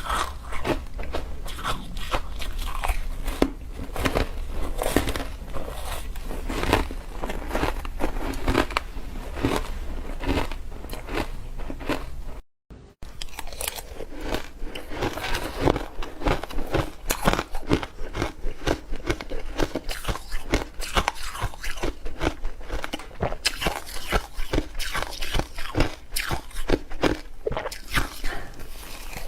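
Ice being bitten and chewed close up: rapid, irregular crunching and crackling of the ice breaking between the teeth. There is a brief drop-out about twelve seconds in.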